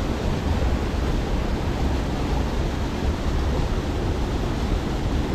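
Steady rush of water at a waterfall, an even hiss over a deep rumble.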